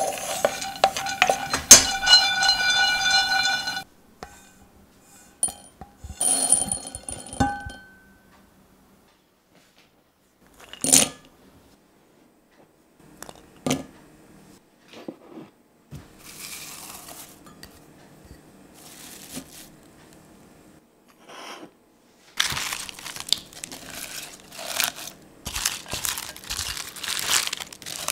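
A wooden spoon stirs and scrapes pine nuts around a pan for a few seconds. Then come separate clinks and sharp knocks as cashews and garlic cloves are dropped into a glass measuring jug. Near the end, fresh baby spinach leaves rustle and crunch as they are pressed down into the jug by hand.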